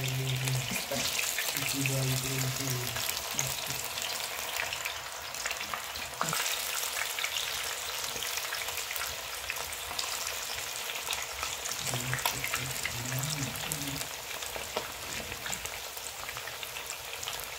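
Spice-coated fish pieces deep-frying in hot oil, a steady crackling sizzle that keeps going as more pieces are slipped into the pan.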